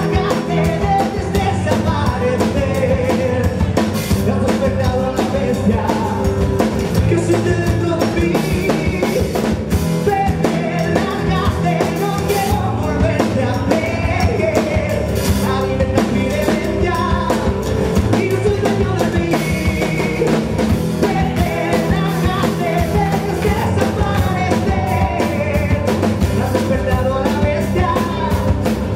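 Rock band playing live: a male singer belting into a handheld microphone over a pounding drum kit and guitars.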